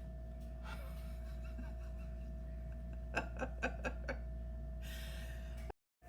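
A short, soft chuckle of about five quick pulses about three seconds in, over a steady electrical room hum; the sound cuts off abruptly near the end at an edit.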